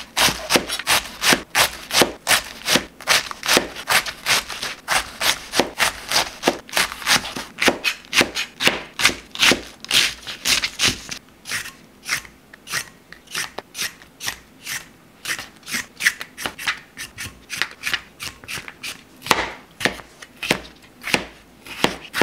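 Ceramic knife cutting through red cabbage and then cucumber on a cutting board, a crisp cut about three times a second. The strokes turn duller about halfway through.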